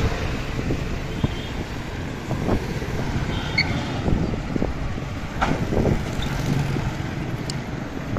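Wind buffeting the microphone of a camera riding along on a moving bicycle, over a steady road rumble, with a few small knocks.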